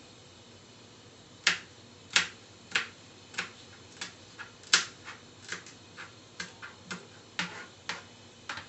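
Oil heating in a non-stick pan, giving a string of sharp, irregular pops of varying loudness, about two a second, starting about a second and a half in.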